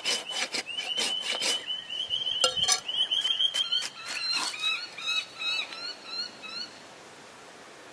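A hoof rasp worked in quick strokes over a horse's hoof, taking back the toe callus, for about the first second and a half. Then a bird gives a run of chirps, about four a second, that fades out; about seven seconds in the sound drops to a faint hiss.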